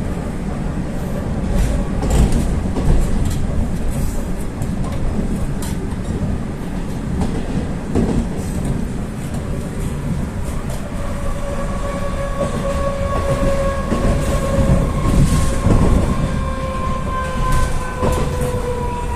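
Interior of a Rusich metro car running through a tunnel: steady wheel and track rumble with scattered clicks of the wheels over rail joints. From about halfway through, the car's traction drive gives a whine that slowly falls in pitch.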